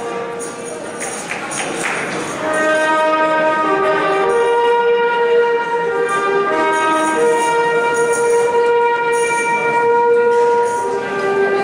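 Trumpet playing a slow melody of long held notes.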